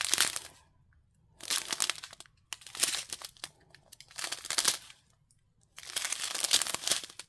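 Small plastic bags of diamond-painting drills crinkling as they are handled and turned over, in about five separate bursts with short quiet gaps between them.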